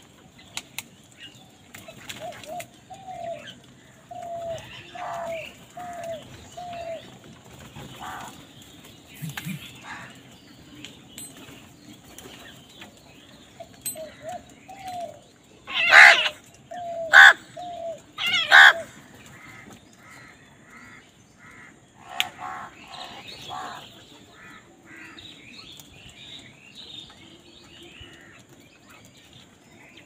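House crows calling while feeding: runs of short, slightly rising calls, then three loud harsh caws in quick succession a little past halfway, followed by a patch of higher, choppier calls.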